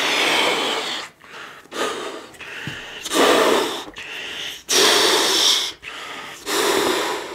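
A man blowing up a white light-up balloon by mouth: a series of long, hissing blows of about a second each, with short breaths in between as the balloon fills.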